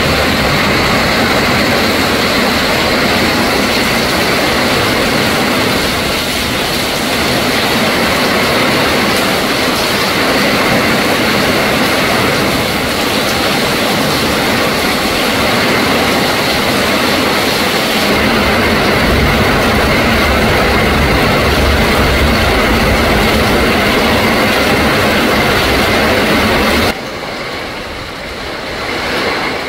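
Heavy rain pouring and strong storm wind gusting through trees, a loud, steady rushing noise with wind buffeting the microphone as a flickering low rumble. Near the end it drops suddenly to a softer rush.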